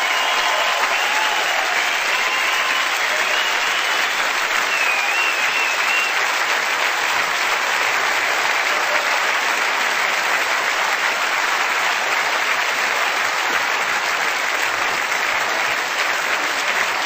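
Large theatre audience applauding steadily through the curtain call.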